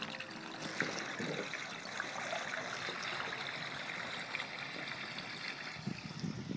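Water running and trickling down inside the drain pipe, heard up through the open roof vent around the drain-snake cable: the backed-up kitchen drain starting to flow as the clog gives way. Steady, with a few faint ticks.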